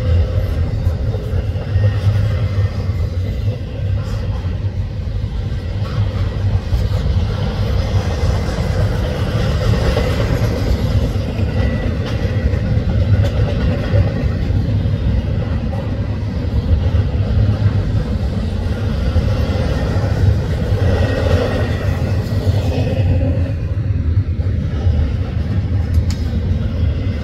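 Double-stack intermodal well cars rolling past: the steady rumble of steel wheels on rail.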